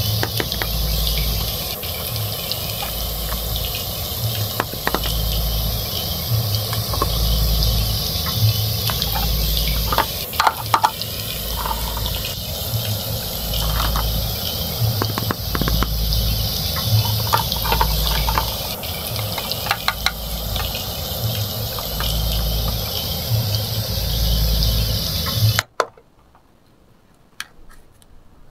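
Frying sizzle sound effect, a steady hiss with a low pulse about every second and a half, with light clicks of plastic toy pieces being handled. The sizzle cuts off suddenly near the end, leaving only a few faint plastic clicks.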